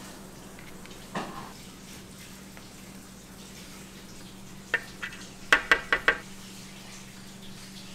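Metal kitchen utensils clinking against cookware: one soft knock about a second in, then a quick run of about six sharp clinks in the middle, over a steady low hum.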